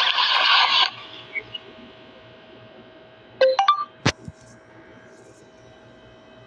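Short smartphone notification chime of a few quick notes about three and a half seconds in, followed by a sharp click. A loud noisy burst fills the first second, and a faint steady tone runs underneath.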